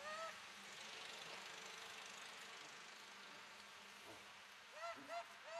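Faint steady insect buzzing in the jungle, with four short high calls from an animal, each rising then falling in pitch: one right at the start and three in quick succession near the end.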